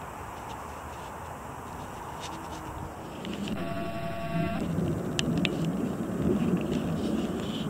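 Outdoor background noise. A low rumble grows louder about three seconds in. Near the middle a buzzing tone sounds once for about a second, and a few short, high ticks come on either side of it.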